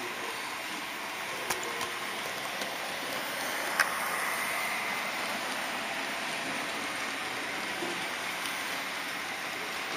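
HO-scale model train rolling along its track, a steady hissing rattle of small wheels on the rails, with a few sharp clicks, the loudest a little under four seconds in.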